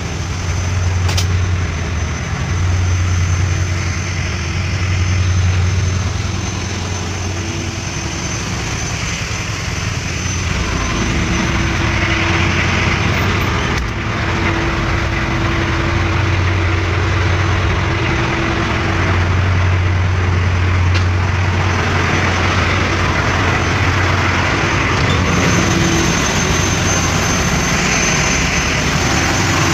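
Ship's engine room with diesel machinery running: a loud, steady drone with a deep hum, a mid-pitched tone that comes in about ten seconds in, and a thin high whine over it.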